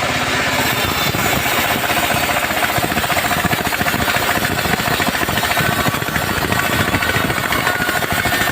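Long-bar two-stroke chainsaw running at high revs under load, cutting lengthwise through a teak log, with a fast, steady rattling pulse.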